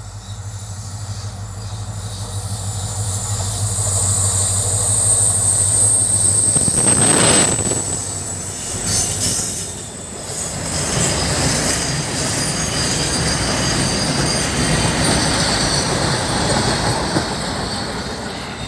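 A freight train of flat wagons, hauled by locomotives, approaches and passes close by. The locomotives' low engine hum builds with a thin high wheel squeal and is loudest as they pass about seven seconds in. After that the wagons' wheels rumble and clatter past steadily over the rails.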